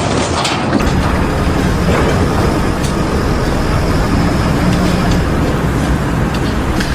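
Loud, steady rumble of running machinery with a faint low hum.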